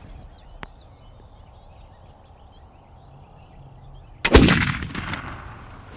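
A flintlock muzzleloader fires a single shot about four seconds in, a sudden loud black-powder report that dies away over about a second. Faint birdsong is heard before it.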